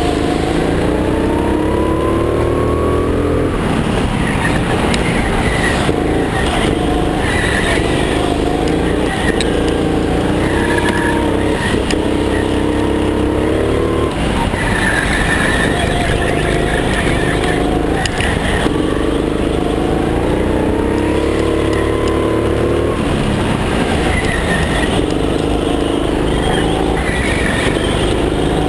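Go-kart engine heard from on board, climbing in pitch as it accelerates and dropping back as it lifts off, four times over.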